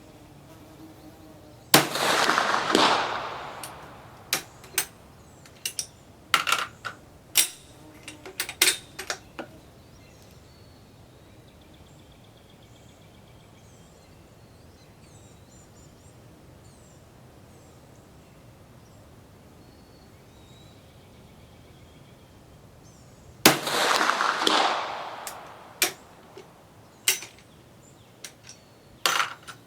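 Two shots from a Swiss 1878 Vetterli bolt-action rifle, about 22 seconds apart, each a sharp crack with an echo that dies away over about a second and a half. After each shot comes a run of short sharp metallic clicks over a few seconds as the bolt is worked to eject and reload. Faint bird chirps sound in the quiet between the shots.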